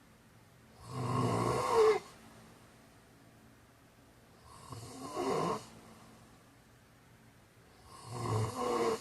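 A man snoring in his sleep: three snores of about a second each, one every three to four seconds, with quiet gaps between.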